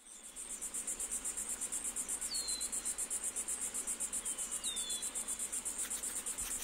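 Crickets chirping in a rapid, even pulsing trill that fades in at the start, with two short falling whistles partway through.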